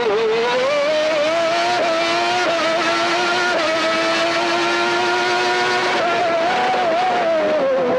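Honda V12 of a 1991 McLaren MP4/6 Formula One car at full throttle, heard on board. Its revs climb with a couple of quick upshifts in the first few seconds, hold high and steady, then fall near the end as the car slows.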